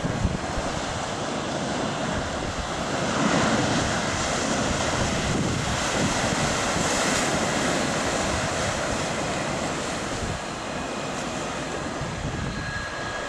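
Surf breaking and washing up onto the beach, swelling about three seconds in and easing toward the end, with wind rumbling on the microphone.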